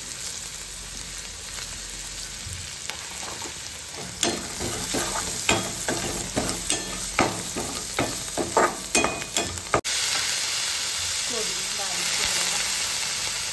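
Chana dal, green chillies and spices sizzling in hot oil in a metal kadhai, with a steel spoon scraping and clinking against the pan as it stirs, for about six seconds from four seconds in. Then the clinking stops and a steadier, louder sizzle follows.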